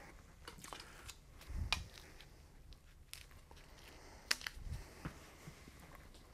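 Light clicks and rustles of an archer handling a traditional longbow and a feather-fletched wooden arrow between shots: the arrow is brought up and nocked on the bowstring, with a sharp click about a second and a half in and another about four seconds in.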